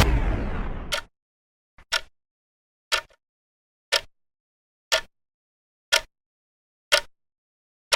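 The tail of a time-stop sound effect fades out about a second in, then a clock ticks once a second, about seven sharp ticks with silence between: the ticking of frozen time in The World time-stop effect.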